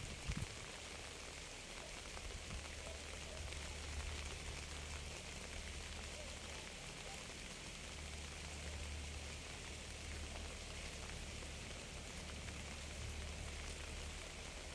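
Steady rain falling, an even hiss with a low steady rumble underneath.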